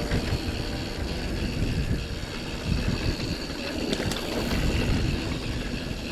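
Mountain bike ridden over wet, muddy singletrack: a steady rumble of tyres on the trail with irregular rattles and knocks from the bike over roots and bumps.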